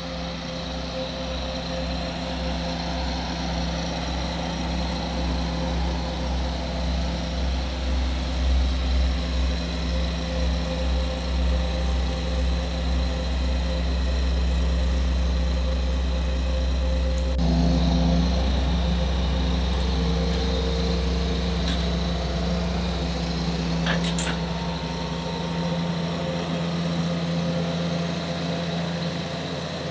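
An engine running steadily over a deep rumble, its pitch pattern shifting about two thirds of the way through.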